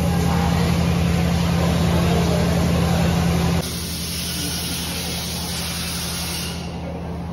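Steady low hum of running machinery. It drops in level suddenly about three and a half seconds in and carries on quieter.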